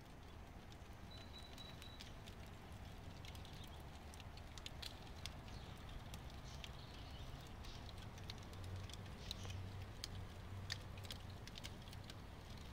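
Charcoal fire in a trompo grill crackling faintly, scattered small pops and ticks over a low steady hum.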